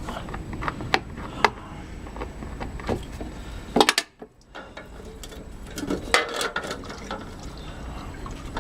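Scattered clicks, knocks and clatter of hand work on a lawn mower as it is readied for draining its fuel tank, over a low steady hum. Everything drops out briefly about four seconds in.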